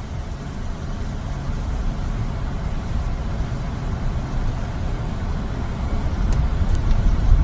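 Van being driven, heard from inside the cabin: a steady low rumble of engine and road noise that grows gradually louder.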